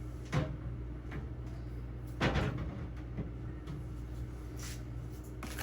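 Plastic smoothie bottles knocking as they are set onto refrigerator shelves: two clear knocks, about half a second in and just after two seconds, with a few faint ticks between, over a steady low hum.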